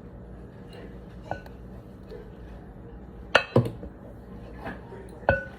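Kitchenware clinking and knocking as cake batter is measured out into cake pans: a light clink about a second in, a loud pair of knocks about three and a half seconds in, and a last knock near the end that rings briefly.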